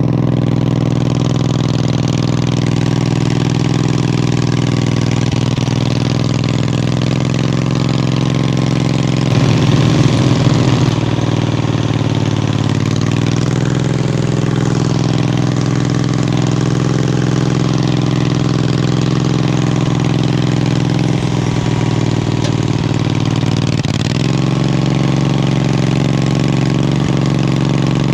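Wheel Horse lawn tractor's engine running steadily, briefly louder and rougher about ten seconds in, with its pitch shifting a few times as the engine speed changes.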